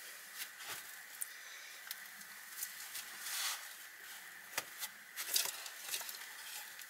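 Rustling and scattered short knocks as a person shifts and lies down on a sleeping platform of wooden poles covered with a woven mat, with more going on in the second half.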